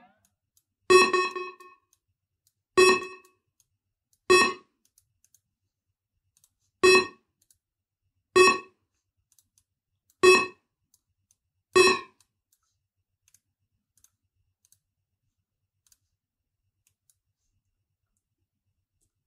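A short pitched electronic stab plays alone, struck seven times at uneven gaps of about 1.5 to 2.5 s. Each hit dies away within half a second, with no drums or bass under it, and the hits stop about 12 s in.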